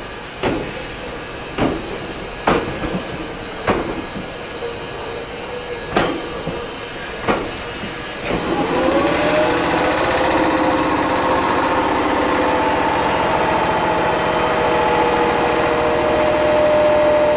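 Toyama Chiho Railway electric train rolling over rail joints with a sharp clack every second or so, then its traction motors whining up in pitch as it gathers speed about eight seconds in, settling into a steady whine.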